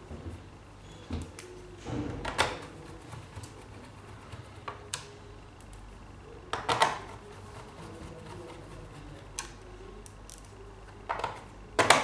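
Lenovo G50 laptop's bottom cover being pressed into place and its screws driven in by hand: a string of irregular sharp clicks and knocks, a few at a time, a couple of seconds apart.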